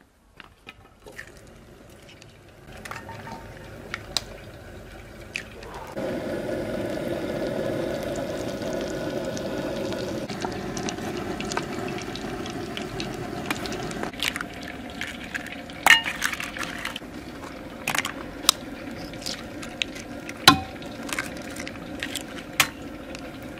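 Butter sizzling as it melts in a hot pan, a steady hiss that starts about six seconds in. From about fourteen seconds in it gives way to a series of sharp clicks and taps as eggs are cracked into an enamel bowl of chopped greens.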